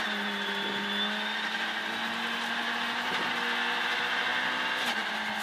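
Ford Fiesta R2 rally car's 1.6-litre four-cylinder engine heard from inside the cabin, held at steady high revs flat out down a long straight, with a steady hiss of gravel under the tyres.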